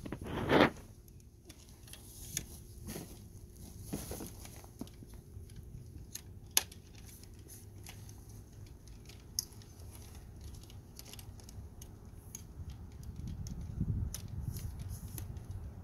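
Tripod legs being extended by hand: the flip-lock leg clamps snap open and shut and the leg sections rattle. The loudest is a short clack about half a second in, followed by scattered sharper clicks and some handling rustle near the end.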